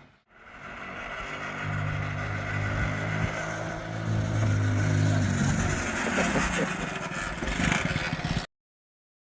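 1984 Honda ATC70's small single-cylinder four-stroke engine running and being revved, its pitch stepping up and down; the sound cuts off abruptly near the end.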